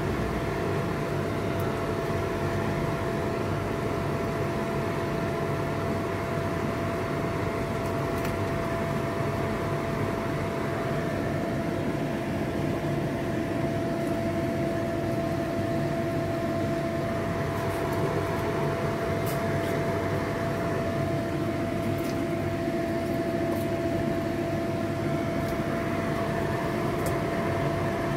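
A steady machine hum with one constant pitch, even in level throughout. A few light clicks of steel kitchenware come in the second half.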